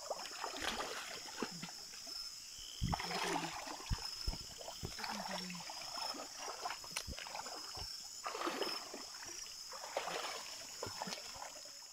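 Shallow stream water trickling, with irregular splashes and knocks from movement in the water.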